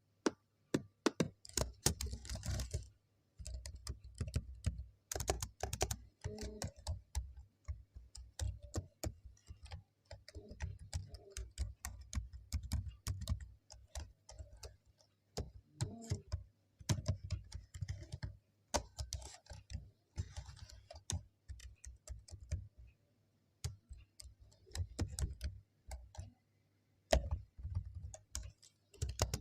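Typing on a computer keyboard: irregular runs of key clicks with short pauses between bursts.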